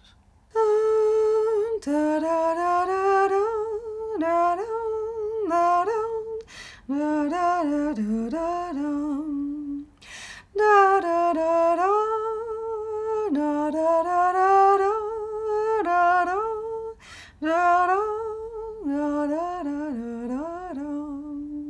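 A woman humming a slow melody unaccompanied, holding notes and stepping between them in phrases broken by short pauses.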